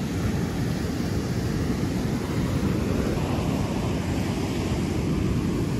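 Ocean surf breaking and washing up the beach, mixed with wind rumbling on the microphone: a steady rush with no breaks.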